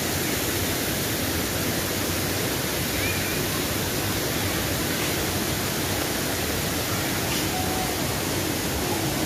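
Steady rushing of a waterfall: an even, unbroken noise of falling water at a constant level.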